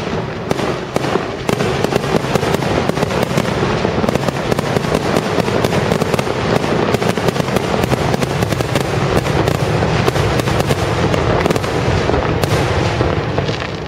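Aerial fireworks display going off in a rapid, continuous barrage of bangs and crackles, many shots a second, ending abruptly near the end.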